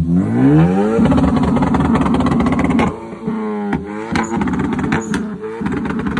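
Ford Focus hatchback's engine revved through its centre-exit exhaust: the revs climb over the first second, hold high for about two seconds, then drop back to idle with a few short blips and several sharp exhaust pops.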